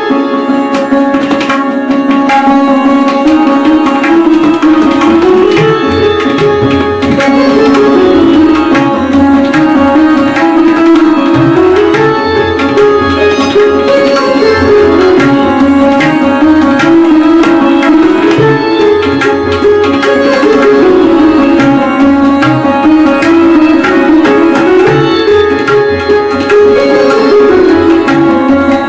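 Casio keyboard synthesizer playing a Hindustani light-classical dhun melody, accompanied by tabla, with a steady pattern of low bass-drum strokes under the tune.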